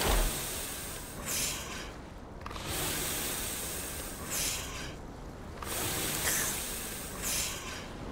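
Cartoon seal's breathing while asleep: a hissing breath about every three seconds over a steady windy hiss.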